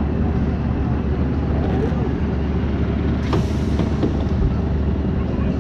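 Custom Coasters International wooden roller coaster train rumbling slowly on its track near the end of the ride. A sudden hiss of air about three seconds in fades over half a second, amid a few light clanks.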